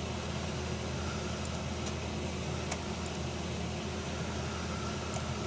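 Cooling fans of running desktop computers: a steady whirring hum with a low drone, broken only by a few faint clicks.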